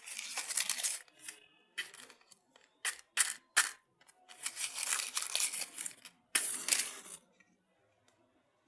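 Irregular bursts of hissing and rustling with a few sharp clicks as a gas brazing torch is handled and readied for lighting; it goes quiet about seven seconds in.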